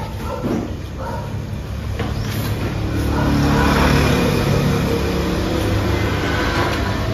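A motor vehicle's engine passing by, its steady rumble swelling to its loudest about four seconds in and then easing off. There are a few light clicks early on.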